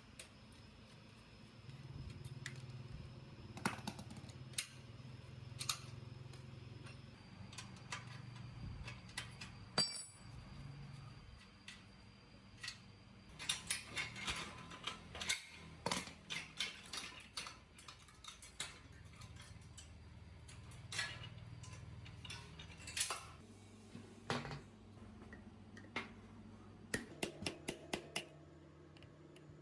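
Scattered light metallic clinks and taps of tools and metal parts being handled and fitted, irregular and busiest in the middle and near the end.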